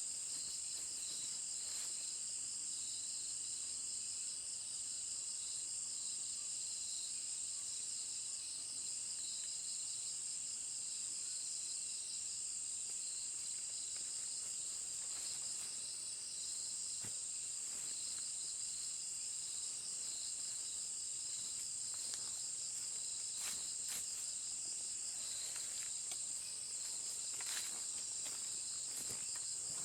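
Insects chirring steadily in a high, continuous chorus, with a fast pulsing trill underneath. A few light clicks and knocks come through in the second half.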